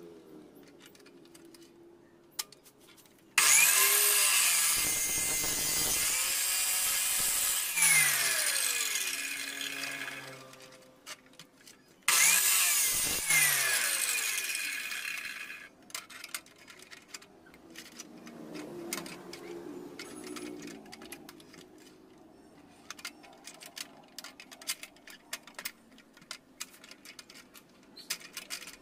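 A power tool running in two bursts, the first about six seconds long and the second about four, its pitch sliding as it speeds up and slows down. After that come scattered light clicks and taps.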